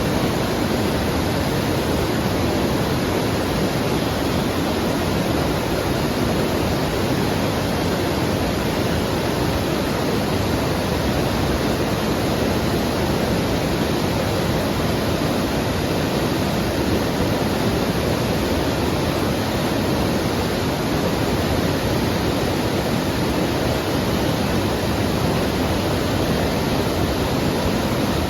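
White water in a brook rushing over rocks: a steady, even rush that does not change.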